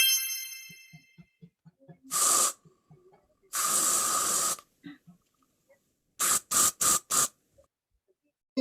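A chime rings and fades at the start, then an aerosol spray can, a deodorant spray, hisses: one short spray, a longer spray of about a second, then four quick short sprays.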